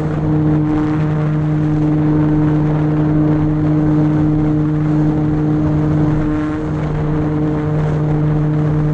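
Electric motor and propeller of a Mini Apprentice S RC plane running at steady throttle: a loud, even buzzing drone over a hiss of rushing air.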